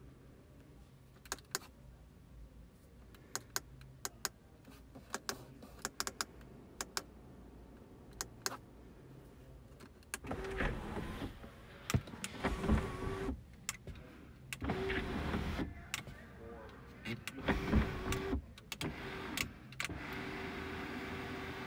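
A series of sharp clicks, then the Porsche 992 911 Carrera's electric sunroof motor running from about halfway, stopping and starting several times before it runs steadily near the end.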